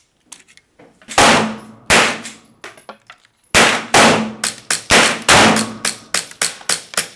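A string of .22 rimfire pistol shots from a Browning Buck Mark semi-automatic: two sharp cracks about a second apart near the start, then a quicker run of shots, loud and quieter mixed, over the second half.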